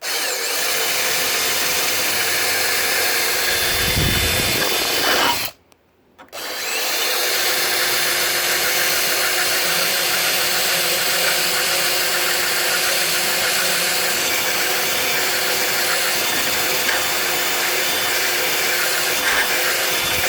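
Drill spinning a sharpening stone against the edge of a rotary mower blade, grinding it sharp. It runs for about five seconds, stops briefly, then starts again and grinds steadily.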